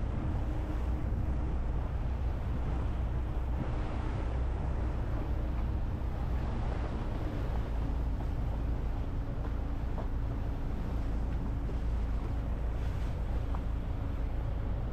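Motorboat engine running steadily as a low rumble, with a rush of water and wind over it.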